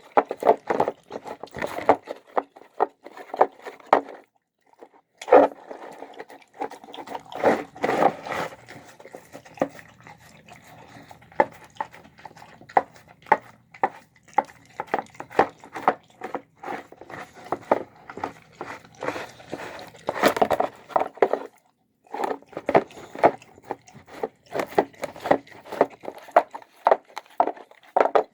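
A dog eating a meal of pulled chicken, pork and rice, making quick irregular chewing and smacking sounds. There are two brief pauses, about four seconds in and about twenty-one seconds in.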